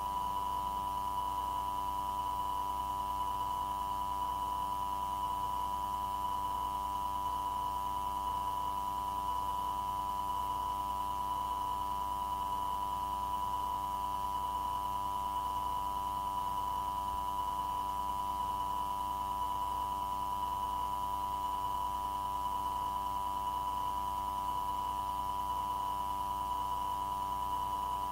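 Steady electronic tone on an air traffic control radio recording: one mid-pitched tone with fainter higher and lower tones mixed in, unchanging in pitch and loudness.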